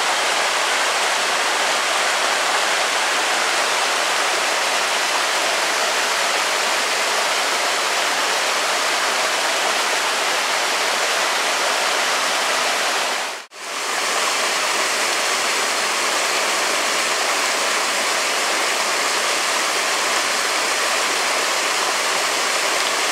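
Mountain stream rushing over rocks in a small cascade, a steady rush of water that drops out for a moment about halfway through.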